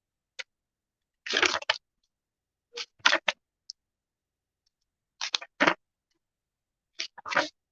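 Pages of a book being leafed through: short papery rustles and flips in about five clusters, with silence between them.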